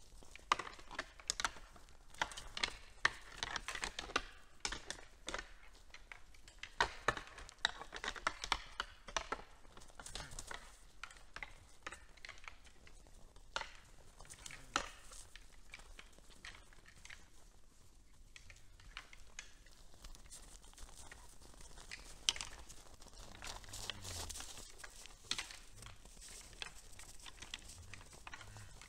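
Red deer feeding at a hay bale in snow: irregular rustling, crinkling and crunching of hay being pulled at and of hooves on snow. It is busiest in the first ten seconds, thins out in the middle and picks up again near the end.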